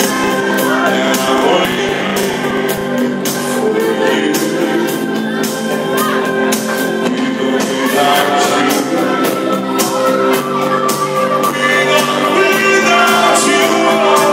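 A rock band playing live: a drum kit keeps a steady beat with regular cymbal strikes under the band, and a voice sings over it.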